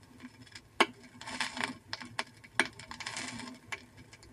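Vinyl record surface noise in the quiet groove between spoken-word bands: a faint hiss with scattered crackle. A sharper click recurs about every two seconds.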